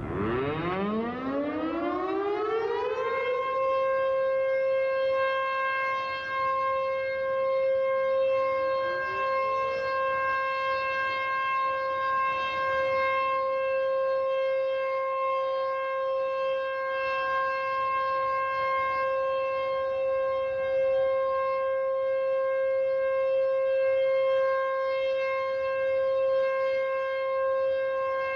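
SuperSirex outdoor warning siren winding up over about three seconds to a steady, high alert tone rich in overtones, then holding it for its 3-minute tornado-warning test. A fainter rising tone joins about eight seconds in.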